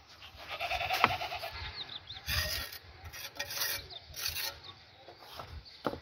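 A goat bleats briefly near the start, then three short rasping scrapes follow in the middle, with a sharp click or two.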